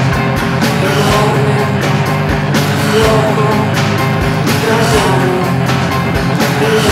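Rock music with a steady beat.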